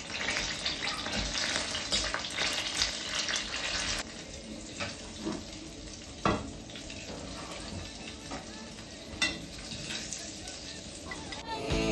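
Butter sizzling in a small skillet as sage leaves fry in it. The sizzle drops in level about four seconds in. A few sharp clicks follow as a fork knocks against the pan, lifting out the crisped leaves.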